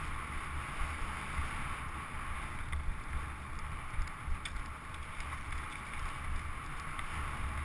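Mountain bike ridden over a rough dirt singletrack, heard from the handlebars: a steady rumble and rattle from the tyres and frame, with wind on the microphone and a few sharp clicks.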